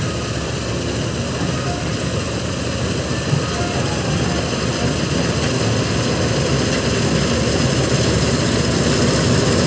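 Combine harvester running while cutting the crop, its engine and threshing machinery making a steady mechanical noise. The noise grows gradually louder as the machine comes closer.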